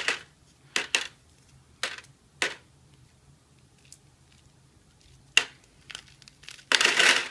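Dry corn kernels crackling and snapping off a dried ear of corn as the halved cob is twisted by hand: several short, sharp crackles, then a longer burst of crackling near the end.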